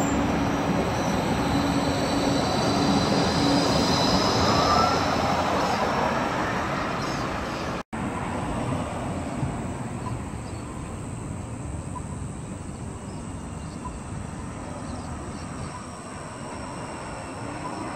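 A Flexity 2 light-rail tram running close past the platform, its motors giving a low hum and a high whine that rises in pitch. About eight seconds in the sound cuts to quieter road traffic with a car passing.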